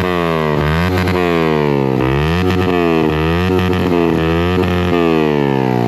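Yamaha MT-15's single-cylinder engine free-revving in neutral through an aftermarket exhaust. The throttle is blipped over and over, each rev rising sharply and falling back to idle. The speaker calls the note very sharp.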